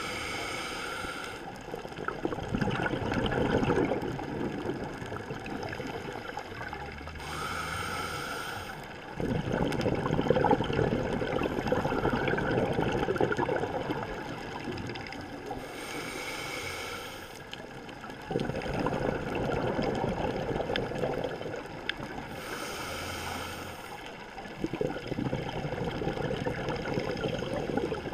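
Scuba diver breathing through a regulator underwater: a short hissing inhale, then a longer rush of exhaled bubbles, one breath roughly every seven or eight seconds.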